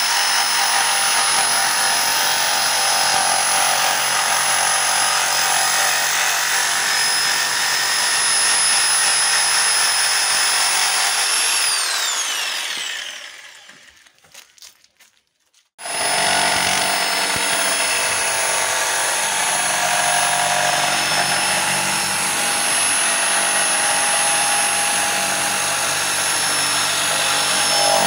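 CAT DX57 electric jigsaw sawing a wooden beam with its base tilted to 45 degrees, running steadily with a high whine. About twelve seconds in the motor is switched off and winds down, falling in pitch, leaving a couple of seconds of quiet with a few small clicks. It then starts again suddenly and saws through a thin wooden sheet until the end.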